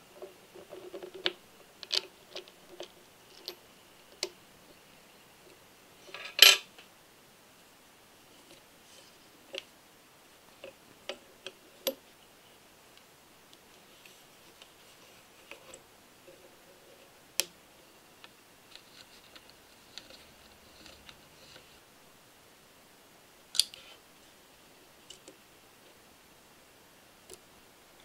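Small metal parts of an all-metal engine model kit clicking and clinking as aluminium pulleys are fitted and a rubber drive belt is looped over them. Scattered light taps, with a louder short clatter a few seconds in and a few sharp clicks later.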